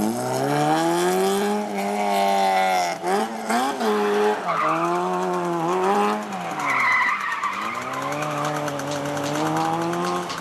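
Lotus Elise sports car engine revving up and down repeatedly as the car drifts, with tyres squealing in stretches around the middle.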